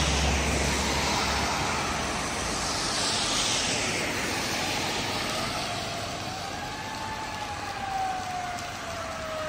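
Traffic hissing along a wet road. From about five seconds in, a fire engine's siren comes in faintly: its pitch rises and then falls slowly.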